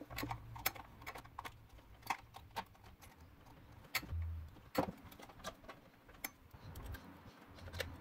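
Scattered light clicks and knocks of hard plastic parts being handled and fitted together as the housing of a 12V air compressor is reassembled by hand.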